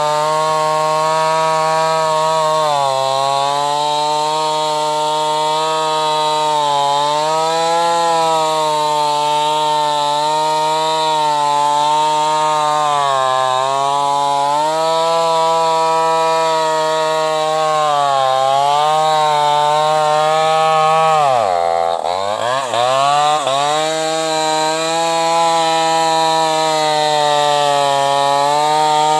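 New West 588 two-stroke chainsaw with an open, muffler-less exhaust running at high revs while cutting hardwood, its pitch sagging every few seconds as the chain is loaded. About 21 seconds in the engine bogs down sharply, almost to a stall, then picks back up.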